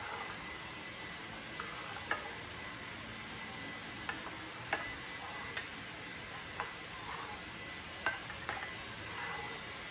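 Knife slicing a thin egg omelette into strips on a plate, the blade tapping the plate in irregular sharp clicks about once a second, over a steady hiss.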